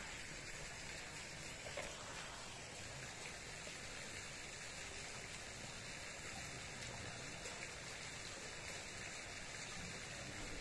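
Faint, steady rushing of water from the pool's elephant-statue fountains spouting into the swimming pool.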